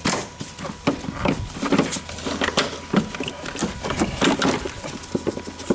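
Irregular plastic clicks and knocks as the engine air filter housing is unclipped and opened to get at the filter, over a steady low hum.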